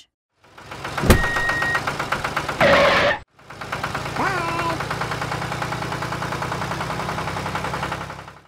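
A tractor engine running with a steady, fast chug. It breaks off for a moment about three seconds in, then runs on. A click, a short steady tone and a brief louder sound come in during the first three seconds.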